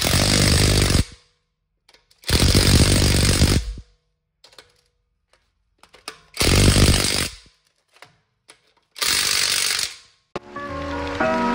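Cordless impact wrench hammering the wheel lug bolts tight, in four short bursts of about a second each with pauses between. Background music starts near the end.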